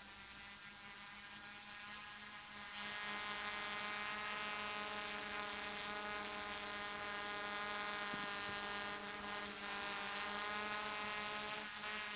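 DJI F450 quadcopter's motors and propellers in flight, a steady multi-toned whine like a large insect's buzz that grows louder about three seconds in.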